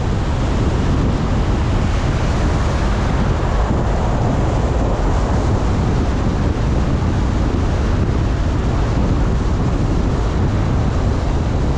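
Wind rushing over the microphone of a car driving at speed, with the car's road noise underneath: a steady, unbroken rush with no distinct events.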